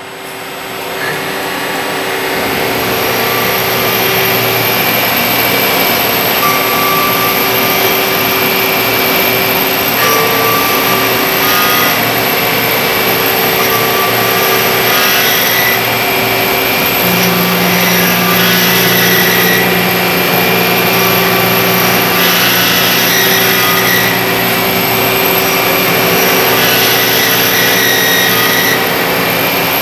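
Miyano ANX-42SYY CNC lathe machining a brass bar: a steady mechanical whine of spinning spindle and milling tool cutting metal, with several held tones that shift as the cut changes. The level builds over the first few seconds, and past the middle a lower hum joins for several seconds.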